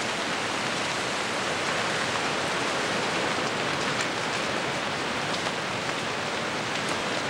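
Steady, heavy rain hissing on a tent in a storm, with faint individual drop hits.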